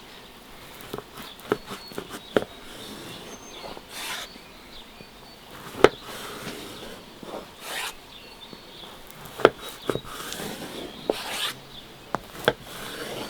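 Scattered light clicks and knocks, the sharpest about six and nine and a half seconds in, with a few brief swishing rubs between them.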